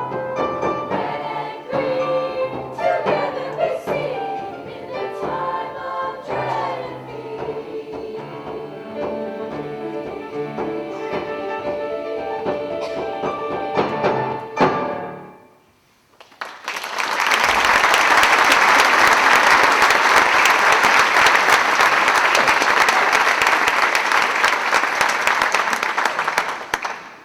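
A choir sings the final phrases of a song, which ends about fifteen seconds in with a held chord. After a second of silence, an audience applauds for about ten seconds, louder than the singing.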